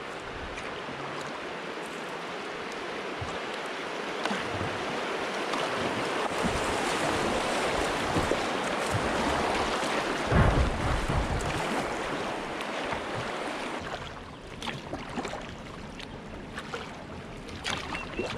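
River water rushing and splashing around a kayak's bow as it runs through a choppy riffle. It grows louder toward the middle, with a brief low buffeting about ten seconds in, then settles to quieter lapping with small splashes near the end.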